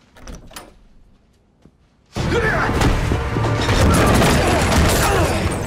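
A few faint knocks, then about two seconds in loud film-score music cuts in abruptly over the thuds and crashes of a staged fist fight.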